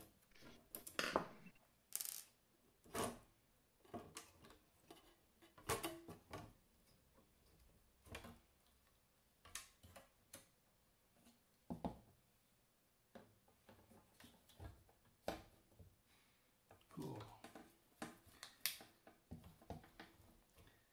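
Faint scattered clicks, taps and scrapes of a screwdriver and hands working on a steel avionics chassis as a circuit board is freed and lifted out.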